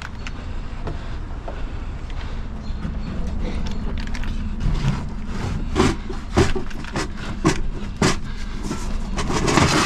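Knocks and clanks of scrap metal being handled as a barbecue is loaded and secured on a truck, a string of sharp hits in the second half, over a steady low engine-like rumble.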